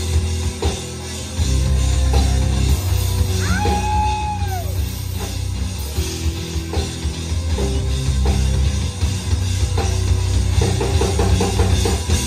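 Live rock band playing an instrumental passage: drum kit, electric guitars and bass through the PA, with no singing. The band drops back briefly about a second in, and a held note bends up and back down about four seconds in.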